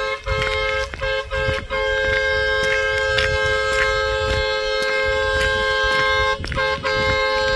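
A vehicle horn sounding in long, steady blasts with only brief breaks.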